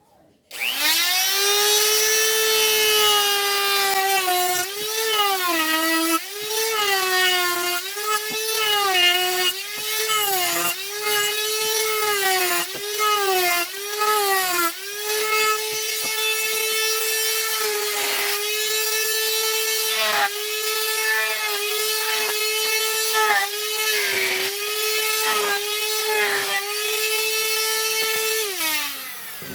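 Electric power tool motor spinning up with a rising whine, its pitch sagging and recovering again and again as it bites into the wood, then running steadier before winding down near the end.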